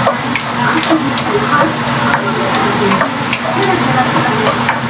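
Diced onion sizzling in olive oil in a nonstick wok while a plastic spatula stirs it, knocking and scraping against the pan in irregular clicks.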